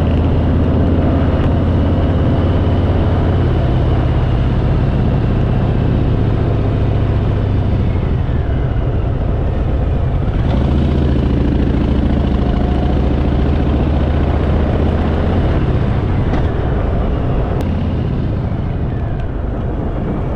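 Harley-Davidson Fat Boy V-twin engine running under way, heard from on board with road and wind noise. Its note changes about ten seconds in.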